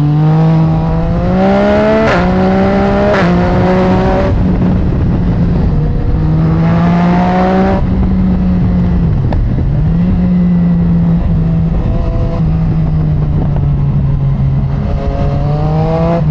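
Yamaha MT-09's three-cylinder engine through an aftermarket exhaust, accelerating hard with quick upshifts about two and three seconds in, then holding steady revs. It pulls up again around the middle, drops briefly off the throttle, and rises once more near the end.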